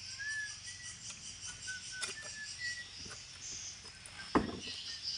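Oil palm harvesting with a long pole-mounted sickle (egrek): a few light knocks, then one heavy thump about four seconds in as cut material from the palm crown comes down. Short high chirps and a steady high hiss run alongside.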